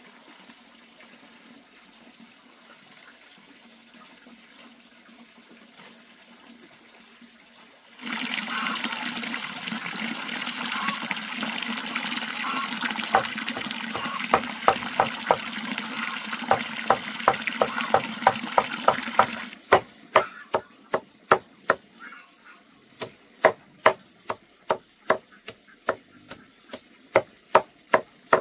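Water running steadily for about eleven seconds, stopping suddenly, with sharp knocks at roughly two a second that begin partway through and carry on after the water stops.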